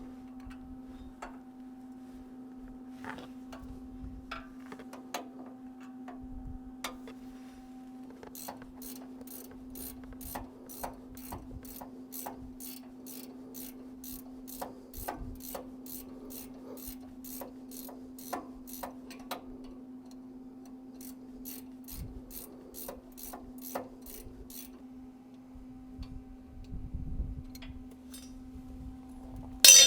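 A run of even mechanical clicks, about two a second, like a ratchet being worked, over a steady low hum, with a short loud burst of noise right at the end.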